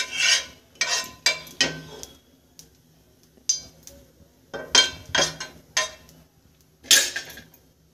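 Steel spoon scraping and clinking across a nonstick frying pan as oil is spread over its surface: a series of short strokes in quick groups with brief pauses between them.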